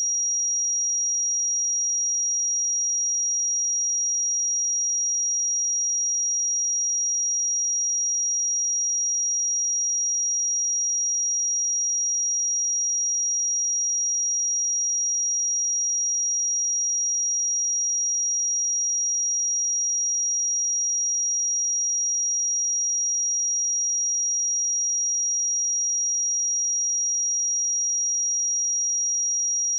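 A single pure sine-wave test tone at 5712 Hz, a steady high-pitched whistle held at constant pitch and level.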